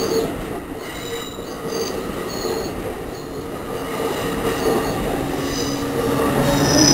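NJ Transit double-deck Multilevel commuter coaches rolling past the platform as the train pulls in, with steady rumble from the wheels on the rails. Short high squeals come and go, and a loud, steady squeal starts near the end.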